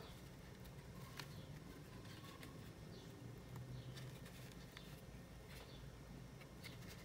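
Faint rustling and a few soft clicks of a metal crochet hook drawing cotton string through stitches, over a low steady room hum.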